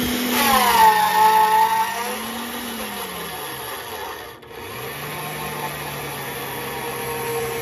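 AOCKE AX16RE magnetic drill press running a twist bit into a steel plate. The motor's whine falls in pitch twice as the bit works. After a brief dip about halfway through, it settles into a steady, lower hum.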